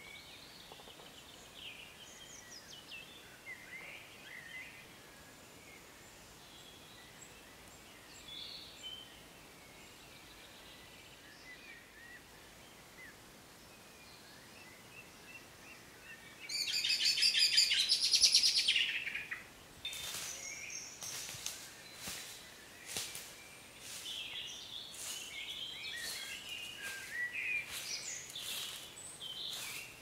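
Spring woodland birdsong: several birds singing and calling, with one loud, fast, trilling song lasting a couple of seconds a little past halfway. A run of short sharp crackles follows through the last third.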